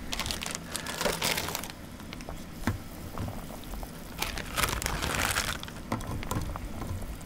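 Instant ramen broth boiling hard in a pot, bubbling steadily. There are louder rustling stretches about a second in and again around five seconds, as blocks of dried instant noodles are lowered into the boiling broth.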